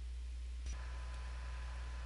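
Steady low electrical hum and hiss from the recording setup, with a single short click about two-thirds of a second in.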